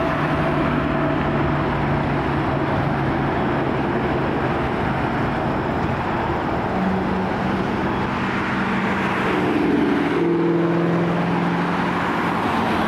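Jet noise from a departing Boeing 777-300ER, its GE90 turbofans at takeoff thrust: a steady loud rumble with a few humming tones that shift in pitch.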